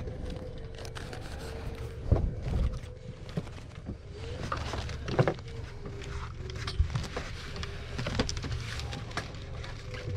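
A boat engine's steady low hum with a faint steady whine, and scattered knocks and clicks throughout, the loudest about two seconds and five seconds in.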